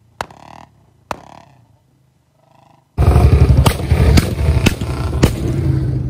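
Royal Enfield Bullet 350's single-cylinder engine thumping loudly, starting suddenly about three seconds in, with sharp exhaust backfire pops ('pataka') about every half second. Before it, only a few faint clicks.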